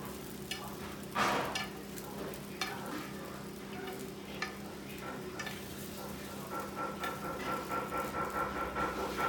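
Fork and spoon turning chicken and potato stew in a clay güveç pot: scattered sharp clicks and scrapes of metal against the pot over a soft sizzle of the hot food.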